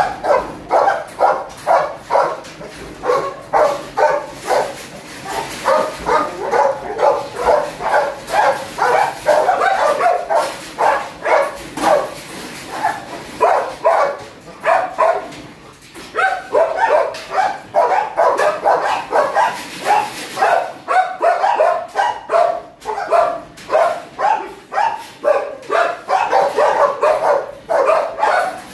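Several kennelled dogs barking rapidly and continuously, several barks a second with a short lull a little past halfway: excited barking at being let out of their cages for a walk.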